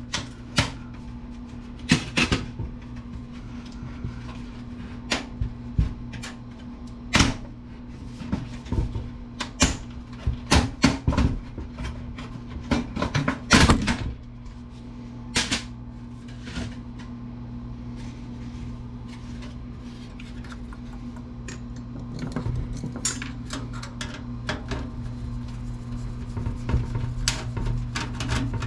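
Irregular clicks, knocks and clatters of plastic and metal computer parts being handled and pulled apart while a desktop computer is dismantled by hand, over a steady low hum.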